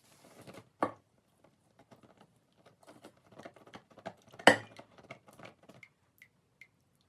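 Light, irregular taps and clatter of metal objects being handled, with a sharp knock about a second in and a louder one about four and a half seconds in.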